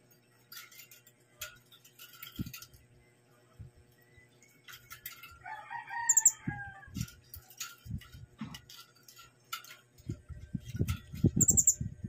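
Philippine hanging parrots (colasisi) in a cage giving two short, very high-pitched squeaky calls, one about halfway and one near the end, among scattered light clicks. Another bird gives a longer, lower call around the middle, and low thumps come in near the end.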